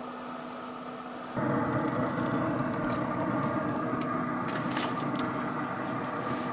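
Steady hum of a running Traeger pellet grill's fan, louder from about a second and a half in. Near the middle, a few sharp clicks from the aluminium foil pan as the pork butt is set down into it.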